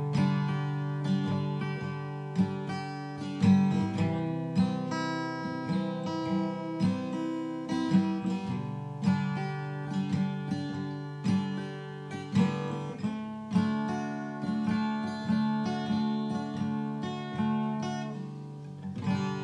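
Background music on acoustic guitar: plucked and strummed chords, each note struck sharply and then fading.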